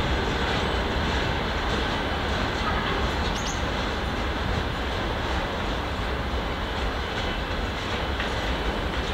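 Freight train of open gondola wagons rolling slowly past on the rails: a steady rumble with faint clicks of the wheels over the rail joints.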